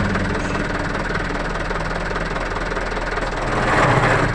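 Mitsubishi Canter truck's diesel engine running steadily while its manual transmission makes a rough, growling noise, swelling briefly near the end. The noise is the complaint under diagnosis, which the mechanic takes to mean something inside the gearbox seems to be broken.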